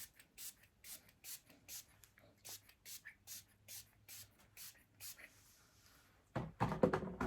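Spray bottle squirting water onto a curly wig, about two to three quick hissing squirts a second for five seconds. Near the end there is a louder, short rustle of hands handling the hair.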